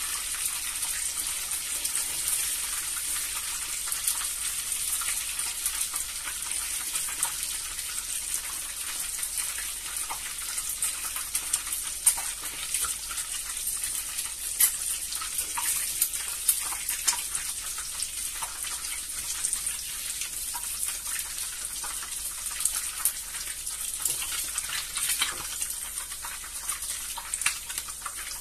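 Hot oil sizzling steadily in a frying pan as food fries, with frequent small crackles and pops.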